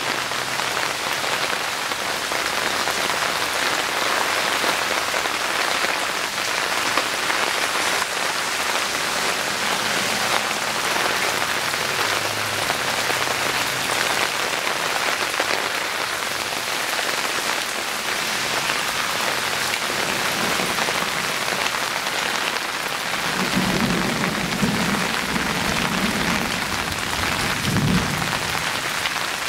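Heavy rain falling steadily on the ground and hard surfaces, a dense, even hiss. Near the end a few low rumbles come through under it.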